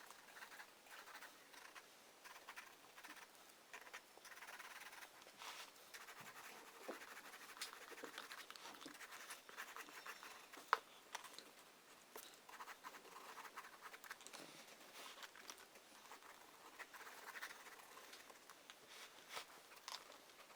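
Faint scratching of a drawing tool on paper: irregular strokes and small taps, with one sharper tap about halfway through.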